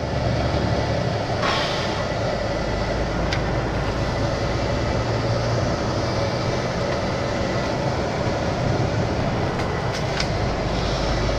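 Steady engine and road noise inside a moving lorry's cab, a constant low rumble with a few faint clicks.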